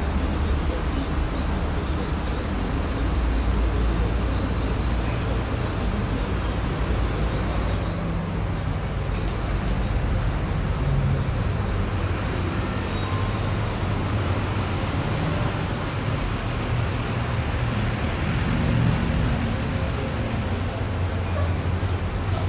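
Busy city street ambience: a steady low rumble of road traffic and buses, with the voices of a crowd of pedestrians mixed in.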